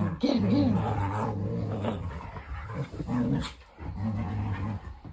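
Two English springer spaniels play-wrestling, with low play growls: one long rumbling growl in the first two seconds, then shorter ones about three and four seconds in.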